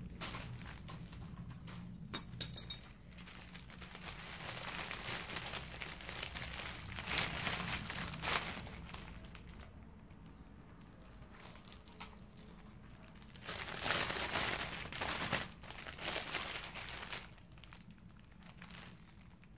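Clear plastic packaging bag crinkling and rustling as it is handled, in two long stretches. There is a sharp click about two seconds in.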